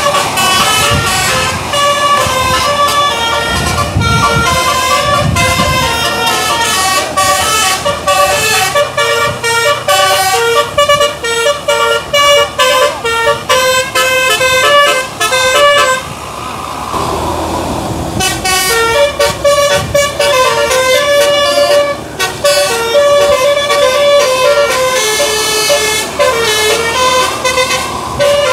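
Bus telolet musical air horn (basuri type) playing a fast tune of short, rapidly changing notes. The tune breaks off for about two seconds just past the middle, where a rushing noise with a gliding tone takes over, then it picks up again.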